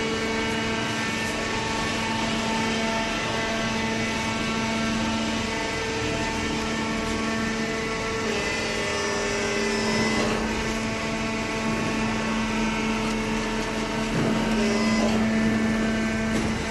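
Hydraulic cardboard baler running: a steady hum from its motor and pump. The tone shifts about halfway through, and there are a few faint knocks.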